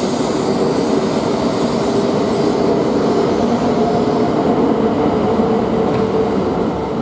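E2 series Shinkansen train running along the platform: a steady rush of wheel and air noise with a faint steady tone in it, easing off near the end as the last cars move away.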